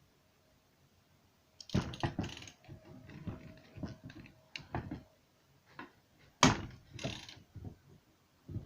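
Bearing puller being wound against the crankshaft end of a Puch E50 moped engine: irregular metallic clicks and creaks as the screw takes up load, with one sharp crack about six and a half seconds in, which sounded like the bearing starting to move.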